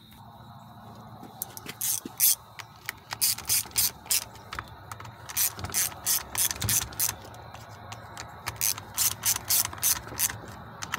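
Runs of sharp ratchet clicks, about three or four a second, in several spells, from a ratcheting hand driver working the carburetor fasteners of a Stihl MS 192 T chainsaw.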